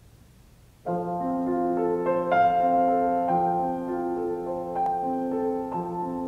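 Grand piano playing the introduction to a musical-theatre song, held chords with notes entering one after another. It starts about a second in, after near-silent room tone.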